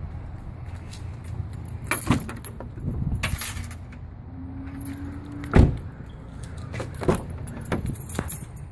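2012 Hyundai Sonata's passenger doors being opened and shut by hand: latch and handle clicks, one loud door thud about five and a half seconds in, then more latch clicks as the next door opens.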